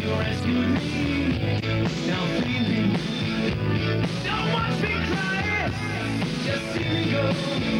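Rock music playing steadily, with a full band sound.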